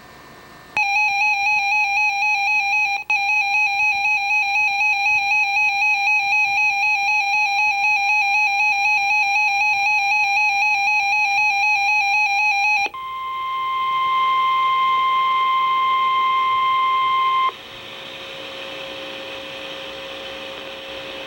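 RadioShack 12-382 weather radio alarm going off for a tornado warning. A fast-warbling electronic alert tone runs for about twelve seconds, then a steady single-pitch tone, the NOAA Weather Radio 1050 Hz warning alarm, sounds for about four seconds. It cuts to radio hiss just before the spoken warning.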